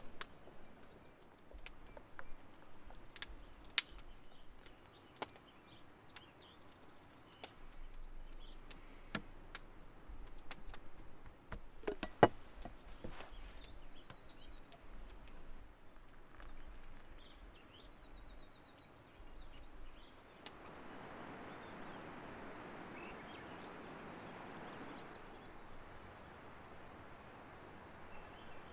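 Scattered clicks and knocks of camp coffee gear being handled: stainless mugs, lids and a Jetboil cup set down and picked up, with a few faint high chirps in between. About twenty seconds in, this gives way to a steady outdoor rushing.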